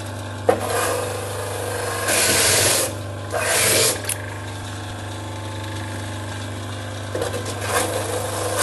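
Electric coconut meat grinder running with a steady motor hum. Bursts of rasping grinding come about two seconds in, again soon after, and near the end, as coconut meat is shredded into powder.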